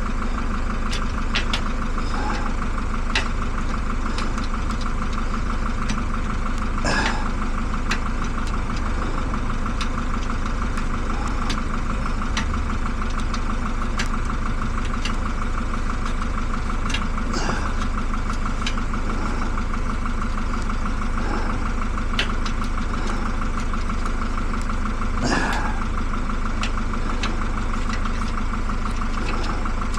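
A steady engine or motor drone holding one pitch, with scattered small clicks and taps over it and a few sharper knocks.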